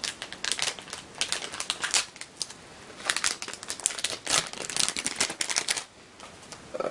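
Plastic packaging crinkling and crackling as it is pulled open by hand, in quick irregular clicks that stop about six seconds in.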